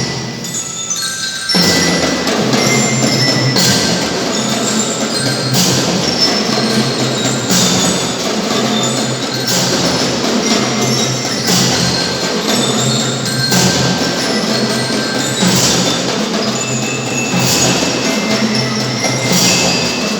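Children's marching band playing a tune with drums and bells. After a brief thinner stretch, the full band comes in about a second and a half in, with a sharp crash roughly every two seconds.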